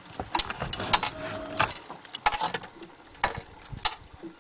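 Irregular clicks, rattles and rustling as a just-landed smallmouth bass is handled and unhooked by hand, with a brief squeak-like tone about a second in.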